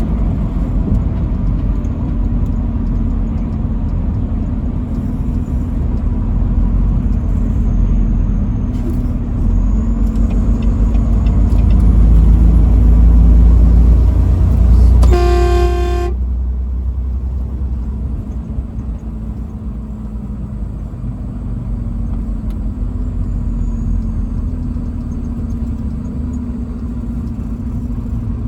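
A truck's engine and road noise make a steady low rumble that swells a little before the halfway point. About halfway through, a truck horn sounds once, a single pitched blast lasting about a second, and the rumble is quieter afterwards.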